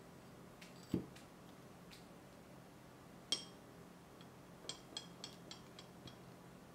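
A marble coaster set down with a dull knock about a second in. Then a metal wax-melting spoon clinks onto the stone with a short ring. Near the end comes a quick run of small glassy clinks as a beaded crystal tealight holder is picked up and moved.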